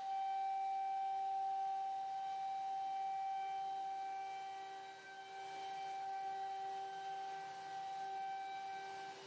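CNC router spindle running with a steady high whine as its bit carves grooves into a wooden panel, with a lower hum that swells and fades.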